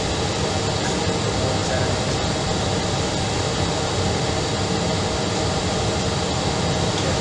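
Steady cabin noise of an Airbus airliner in cruise: an even rush of airflow and engine drone with no change in level.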